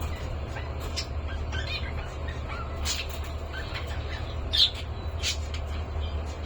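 Pet cockatiels chirping and squawking in short scattered calls, the loudest about four and a half seconds in, over a steady low hum.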